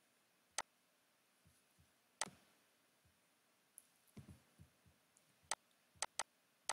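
Computer mouse clicking: about six short sharp clicks spaced irregularly, two close together near the end, with a few faint soft knocks around the middle. Otherwise near silence.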